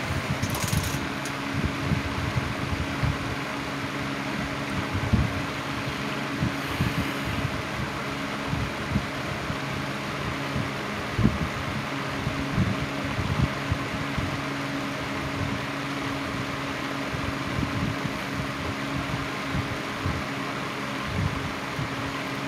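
1980s Patton rotary box fan running on low speed: a steady motor hum under an even rush of air, with irregular low thumps of moving air.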